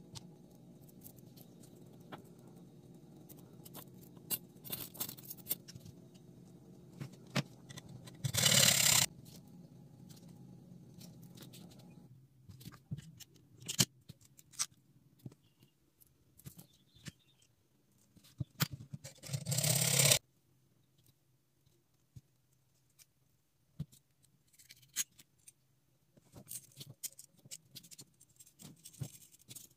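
Small metal parts and soda-can lids handled by hand on a work mat: scattered clicks and taps, with two short, loud scrapes, over a low hum that stops about twelve seconds in.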